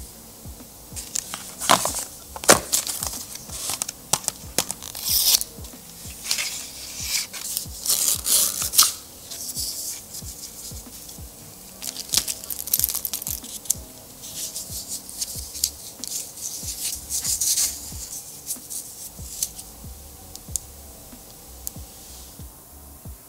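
Unboxing sounds: paper and cardboard packaging rustling and tearing in irregular bursts, with sharp clicks and taps as the watch and its band are lifted out and fastened. Quiet background music plays underneath, and the handling noises die away near the end.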